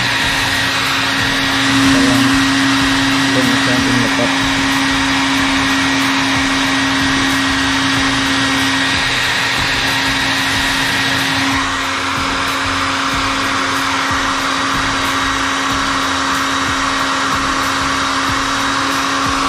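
Handheld hair dryer running steadily, a rush of air with a constant motor whine, blowing hot air over a freshly applied vinyl decal to soften it and press it flat. The rush of air changes slightly in tone about twelve seconds in.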